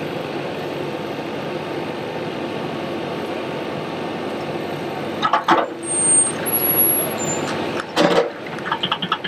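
Backhoe loader's diesel engine running steadily, with two sharp metallic knocks about halfway and near the end, then a quick run of small clicks.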